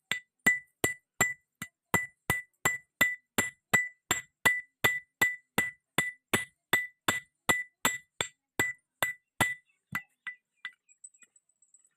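Blacksmith's hand hammer striking steel on an anvil in a fast, even rhythm of nearly three blows a second, each blow ringing: forging a railway clip into a chisel. The hammering stops a little over three quarters of the way through, followed by a few light taps.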